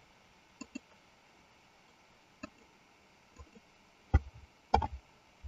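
Scattered clicks of a computer mouse and keyboard: a few light clicks, then two louder ones about four seconds in and again just before five seconds.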